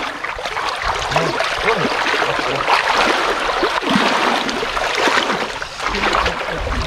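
Shallow river current rushing over stones, with irregular splashing as a person wades and reaches into the water.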